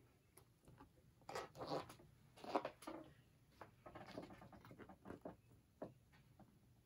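Pages of a large paperback picture book rustling as the book is shifted and handled: faint, scattered rustles and small taps, a little louder about two seconds in.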